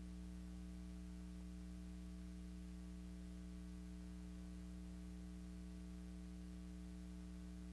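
Steady electrical mains hum with a faint hiss underneath, unchanging throughout; no other sound.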